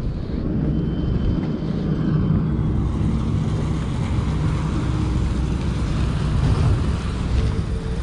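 Highway road traffic: a steady low rumble, with a louder hiss of passing vehicles from a few seconds in.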